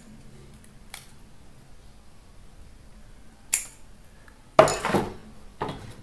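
Small tools and cut insulation paper handled on a tabletop: a couple of light clicks, then a louder metallic clatter near the end as a thin metal strip and the paper are picked up.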